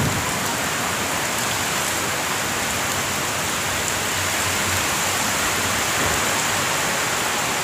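Heavy rain pouring down in a storm, a steady even hiss.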